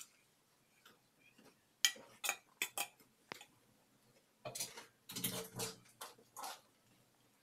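A steel spoon clinking and scraping against a steel plate as cooked rice is served out, with a few quick clinks about two seconds in and a longer run of scraping and knocks later on.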